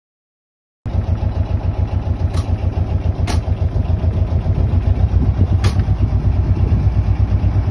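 A narrowboat's diesel engine running with a steady, low rhythmic chug, heard from the stern, starting abruptly after a second of silence. Three sharp clicks come in the first five seconds.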